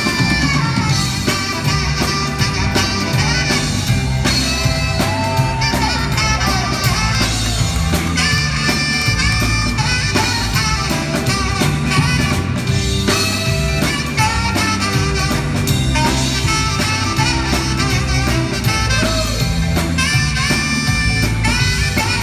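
Band playing an instrumental break in a doo-wop song: a repeating bass line and drums under a lead instrument carrying the melody, with no singing.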